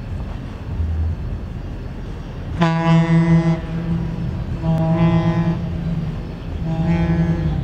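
A boat's horn sounds three blasts of about a second each, the first about two and a half seconds in, over a low rumble.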